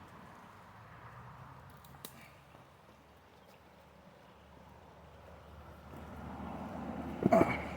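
A vehicle passing on a nearby road: a low rumble that fades away, then swells again toward the end as another approaches. About seven seconds in there is a brief loud pitched sound over it.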